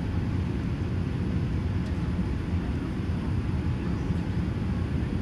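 Steady low rumble of engine and airflow noise heard inside the cabin of a Boeing 787-8 airliner descending low on its landing approach.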